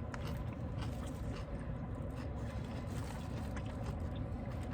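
Chewing with small mouth clicks and smacks while eating fried chicken, over a steady low rumble.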